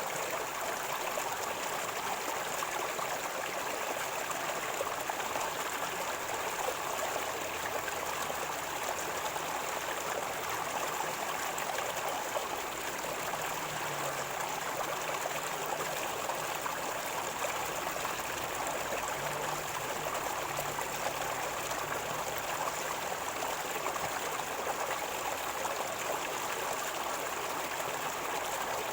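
River water flowing with a steady gurgling rush.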